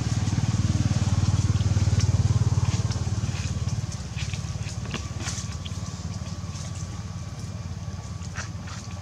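A motor engine running with a low, steady hum, louder for the first four seconds and then fading, with scattered light crackles and clicks over it.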